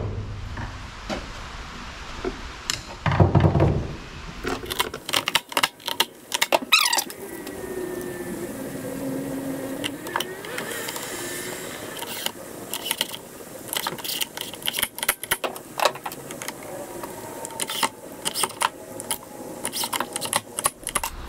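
A cordless DeWalt driver running in short bursts on the screws of a robot mower's plastic underside, between many clicks and knocks of screws, tools and plastic parts being handled.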